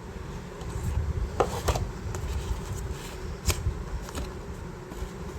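Cardboard box and paper contents being handled: rubbing and light knocks, with a few sharp clicks.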